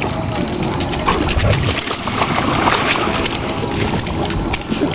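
A dog wading along the shallow edge of a lake, its paws making many small irregular splashes in the water.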